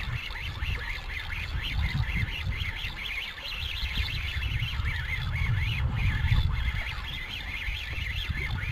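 Fishing reel cranked steadily while a hooked fish is brought in, a fast high rippling chatter, over wind and water rushing on the microphone.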